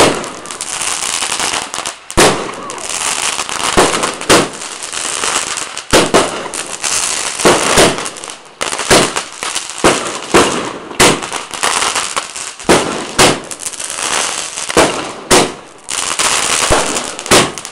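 Fireworks going off in a rapid series of sharp bangs, roughly one a second and some in quick pairs, with a steady high hiss between them, like a multi-shot firework barrage.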